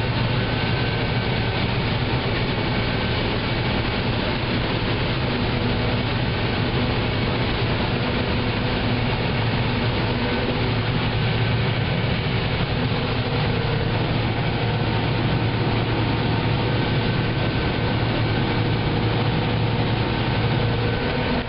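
Combine harvester running steadily while harvesting corn: a constant low engine drone under the machinery's noise, with a few faint steady whines above it.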